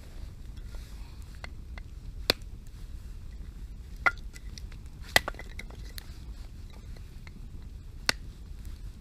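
Wood campfire crackling with scattered small pops over a low steady rumble, and four louder sharp knocks as kindling is split on a chopping block: about two seconds in, twice near the middle and once near the end.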